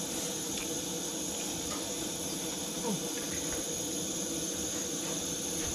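Steady hiss of a camp stove burner running, with a few faint small ticks.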